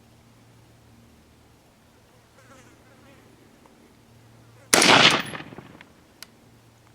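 A single shot from an AR-15 rifle with a 20-inch barrel in .223/5.56, a sharp crack about five seconds in whose echo dies away over about a second. A short faint click follows.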